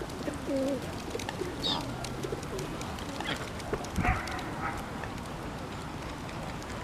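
Birds calling around the feeder: a few low, short gliding calls in the first second, then scattered brief higher calls over steady outdoor background noise.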